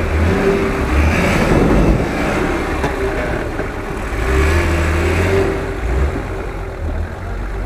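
Lifted Nissan Patrol 4x4's engine revving as it crawls through snow and mud, rising in two surges: one in the first two seconds and another around the middle.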